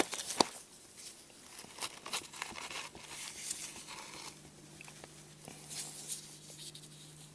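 Irregular metallic clicks, knocks and scraping of a filter wrench and socket wrench being worked on a motorcycle oil filter to loosen it, with a sharp knock at the start and another about half a second in. A faint steady low hum comes in about three seconds in.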